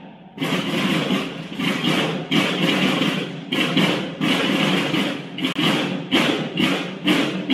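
Marching drums of a banda de guerra playing a steady march cadence, about two strokes a second, starting just after a short pause.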